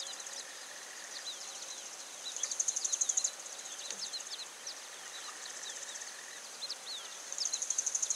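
Desert field ambience: many short, high chirping bird calls scattered throughout, with a high, rapidly pulsing buzz that comes twice for about a second each, over a faint hiss.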